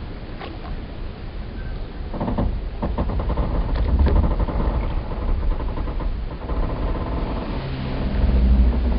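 Wooden boat timbers and pier creaking under strain: a higher, stuttering creak from about two seconds in until about seven, then a deeper groan near the end, over a steady low rumble.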